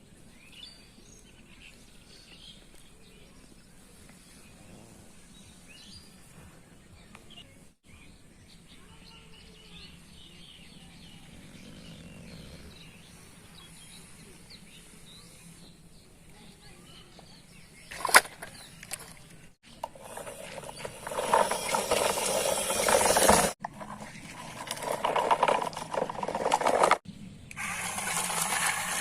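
Faint bird chirps over quiet outdoor background. Then a sharp crack, and loud harsh noise in several segments that cut off abruptly.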